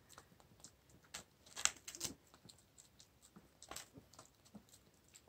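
Schipperke dog chewing a dried lung treat: faint, irregular crunches and clicks as she bites into the dry, airy meat.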